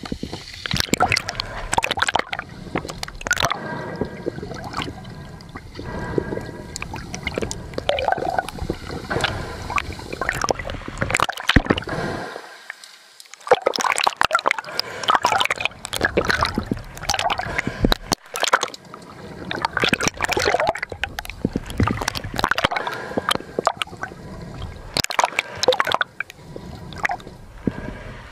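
Water sloshing and gurgling around a diving camera during a spearfishing dive, with many short clicks and knocks throughout. The sound cuts out briefly about twelve seconds in.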